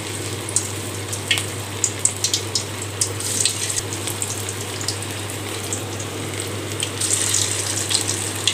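Small balls of spiced mushroom-and-cabbage mixture deep-frying in hot oil in a kadai: a steady bubbling sizzle with scattered crackling pops.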